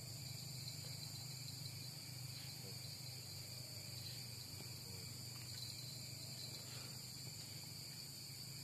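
Steady night chorus of crickets and other insects in a rice field, a continuous high-pitched chirring that does not let up, with a few faint clicks.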